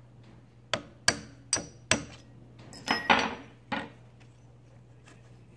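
Small hammer tapping a pin punch to drive out the pivot pin of a trolling motor's tilt-latch assembly: about seven light metallic taps, some ringing briefly.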